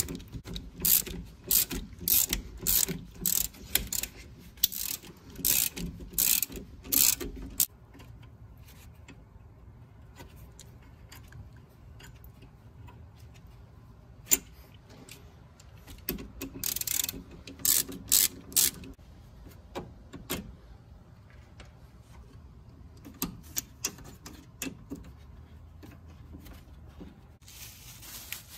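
Socket ratchet clicking in quick runs as two 12 mm bolts holding a bracket are backed out: a long run of clicks, a pause, a shorter run about halfway through, then a few scattered clicks.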